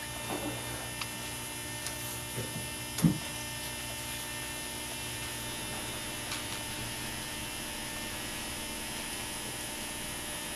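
Steady electrical mains hum with a light hiss, holding level throughout. There is a faint short sound about three seconds in.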